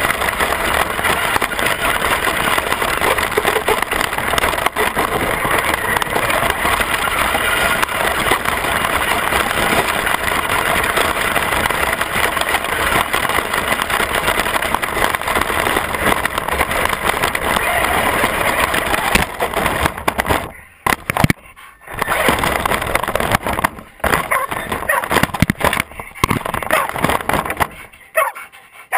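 Radio-controlled Traxxas truck's motor and drivetrain running hard across grass, heard from a camera mounted on the truck itself, steady for about twenty seconds. After that it cuts out and starts again in short spurts, and goes quiet near the end as the truck stops.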